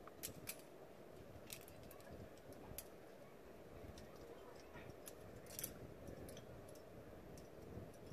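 Faint, scattered metallic clicks and clinks of climbing gear: carabiners and quickdraws knocking together as a lead climber moves up and clips. A low steady background rumble runs underneath.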